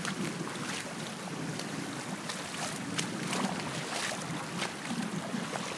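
Floodwater rushing steadily across a flooded driveway, with scattered sharp ticks throughout and wind buffeting the microphone.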